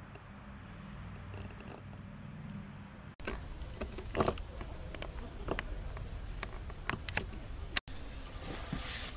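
A low steady rumble, then, after a sudden cut about three seconds in, rustling and scattered clicks and scrapes of movement on leaf-littered ground, with a longer rustle near the end.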